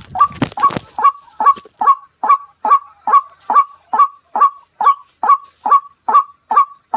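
White-breasted waterhen call, a short honking note repeated very evenly about twice a second throughout. A rustle sounds in the first second.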